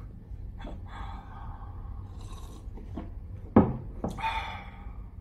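A man's breathing, with gasp-like breaths, and one sudden sharp sound about three and a half seconds in.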